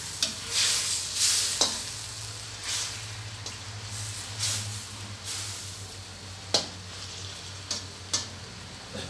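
Water spinach sizzling in oil in a wok as a spatula stirs and scrapes it, with a few sharp clacks of the spatula against the wok.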